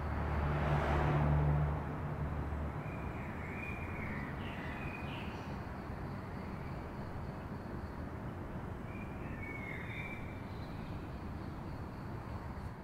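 City dawn ambience: a steady wash of distant traffic, with a vehicle passing close in the first couple of seconds, its low engine hum fading out. Birds chirp twice over the traffic, about four seconds in and again near ten seconds.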